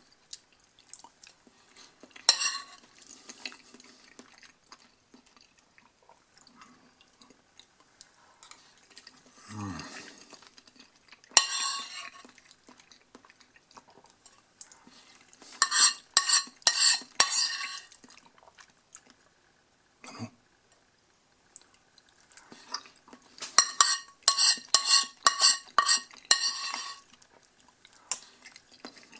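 Metal spoon scraping and clinking against a ceramic plate while the pasta is scooped up and the plate is scraped clean. The sound comes in several separate bursts with quiet gaps, the busiest runs of clinks coming a little past halfway and again near the end.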